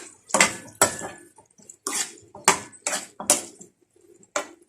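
A metal cooking utensil knocking and scraping against a pan as the pork adobo is stirred: about seven sharp, irregular clacks.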